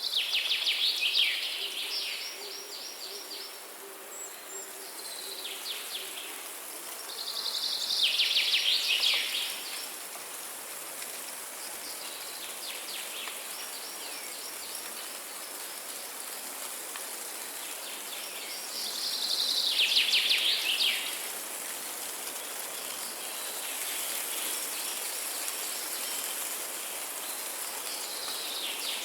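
Forest birdsong: a songbird repeatedly sings a fast trill of high notes, each phrase about two seconds long, roughly every ten seconds, with quieter birds calling in between. A faint low hooting call is heard in the first few seconds, over a steady high hiss of forest ambience.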